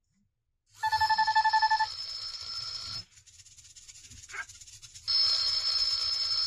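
Eilik desk robot's countdown-timer alarm going off through its small speaker: an electronic ringing signalling that the time is up. It sounds in two spells, fast-pulsing from about a second in, fading after about three seconds, and coming back about five seconds in.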